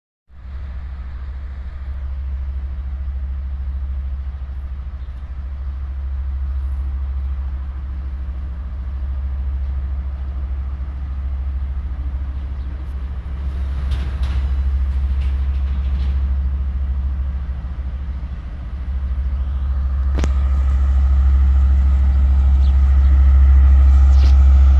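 Train locomotive running with a steady low drone, growing louder in the last few seconds, with several sharp clanks.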